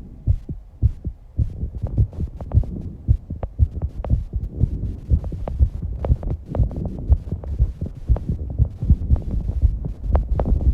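A young woman's fast heartbeat, raised by exercise: rapid low thumps, with breath noise rising behind them from about two seconds in.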